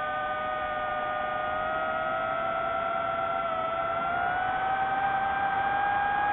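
DJI FPV drone's motors and propellers whining in flight: a steady cluster of tones that rises a little in pitch over the last couple of seconds.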